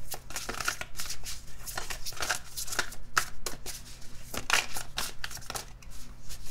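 Tarot deck being shuffled by hand: a continuous run of quick, uneven card flicks and taps as the cards are pushed through the hands.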